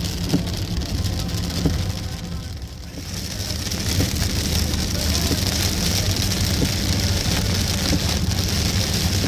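Rain falling, with a steady low rumble underneath; the hiss of the rain grows louder about three seconds in, with scattered drop ticks.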